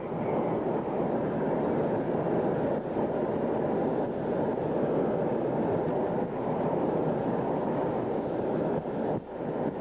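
Steady low rushing noise on a camcorder microphone, the wind-and-road roar of a storm chase, with a brief dip about nine seconds in.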